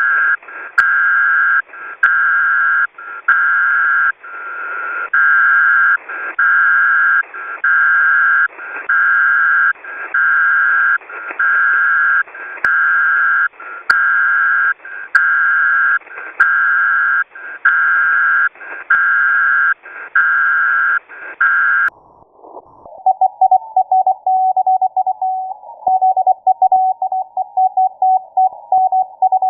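Shortwave radio signal through a WebSDR receiver: a steady tone keyed on and off in even pulses about once a second. About 22 seconds in it switches to a lower tone keyed rapidly, like Morse code.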